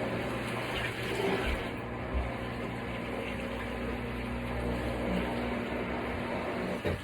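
Kuppet portable twin tub washing machine running, its motor humming steadily under a steady rush of churning water.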